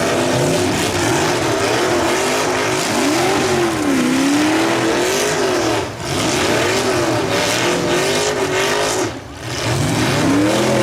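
Several demolition derby cars' engines revving hard, their pitches rising and falling over one another. The sound drops briefly about six seconds in and again near nine seconds.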